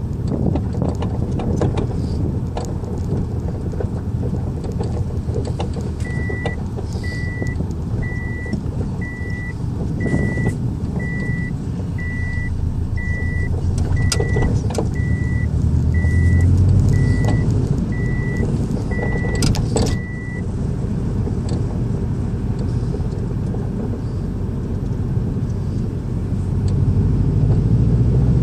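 Car driving with steady low road and engine rumble and a few sharp knocks, the suspension clunk put down to its BC coilovers. A repeating beep, about once a second, runs for about fifteen seconds in the middle.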